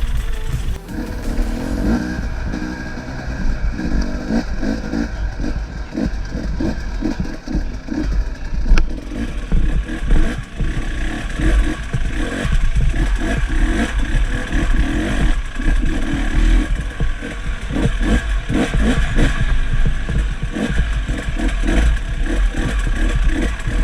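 Off-road motorcycle engine running and revving unevenly, with frequent irregular knocks and rattles from riding over rough trail.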